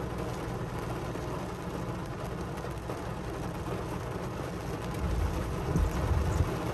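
Steady noise of a car's engine and heavy rain heard from inside the car, with a low rumble of thunder swelling about five seconds in.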